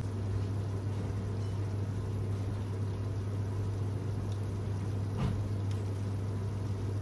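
Steady low kitchen hum with an even hiss over a lit gas hob, as cream sauce trickles through a small strainer into the pot. One light knock about five seconds in.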